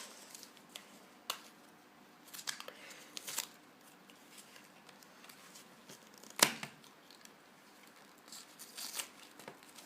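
Toy packaging being handled and opened by hand: scattered short rustles, crinkles and tearing, with one sharp, loud click about six and a half seconds in.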